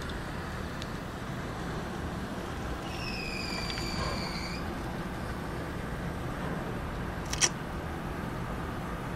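Steady rush of tornado wind and rain. About three seconds in, a high whistling tone sounds for about a second and a half. A sharp click comes about seven seconds in.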